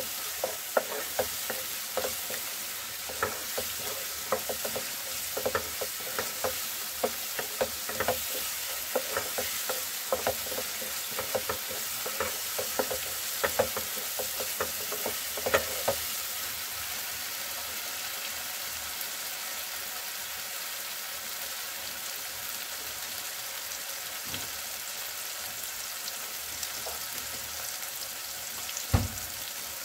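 Tomato-onion masala frying and sizzling in oil in a nonstick kadhai, a spatula stirring and scraping it with frequent clicks for the first half, then only the steady sizzle, with one knock near the end. The masala is being fried until the oil separates from it.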